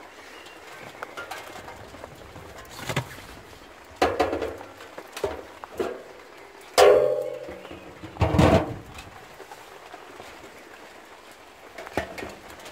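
A galvanized metal bin and its lid clank and knock as they are handled, with a scoop working in a plastic tub of grain. It is a string of separate knocks; the loudest, about seven seconds in, rings briefly.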